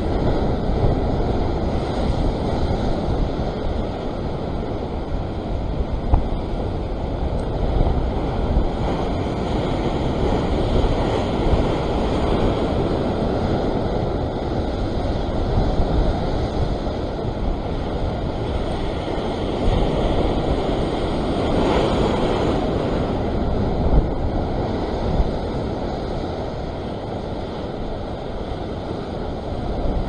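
Rough ocean surf washing and foaming over the rocks, with wind rumbling on the microphone. A wave surges louder a little past two-thirds of the way through, and there are a few brief knocks.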